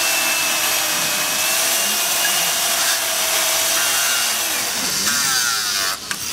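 Corded electric chainsaw running steadily as it cuts into a block of ice, a constant motor whine over the hiss of the chain through the ice. The sound dips briefly near the end.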